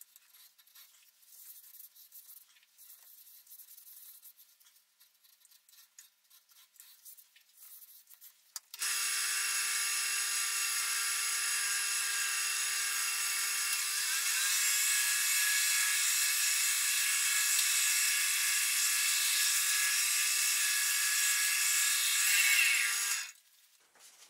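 Wood lathe starting about nine seconds in and running steadily with a whine and a rubbing hiss as wax is worked onto the spinning wooden piece, growing a little louder partway through, then stopping about a second before the end. Before it starts there is only faint rubbing.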